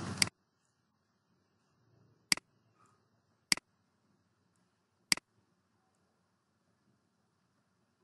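Computer mouse button clicking four times at uneven intervals. Each is a sharp click followed at once by a fainter second tick as the button is released, with near silence in between.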